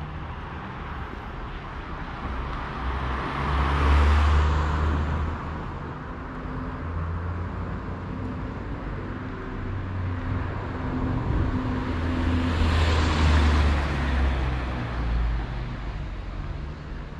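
Two cars driving past one after the other, their tyre and engine noise swelling and fading, loudest about four seconds in and again about thirteen seconds in, over a steady low rumble.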